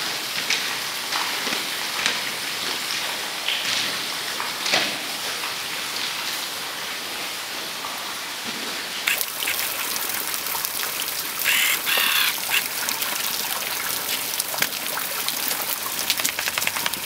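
Footsteps crunching on loose railway track ballast, irregular clicks over a noisy hiss. About nine seconds in the sound changes to a denser crackling hiss, with a brief high-pitched call near twelve seconds.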